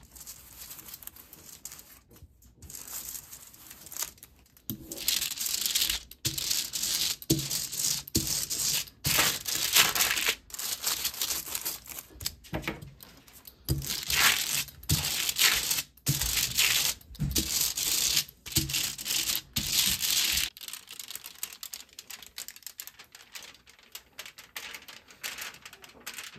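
Hand ink brayer rolled back and forth over an inked aluminium-foil litho plate: a stroke every second or so, each a sticky, crackling hiss of tacky ink and foil. The strokes stop about twenty seconds in, leaving only faint rustling.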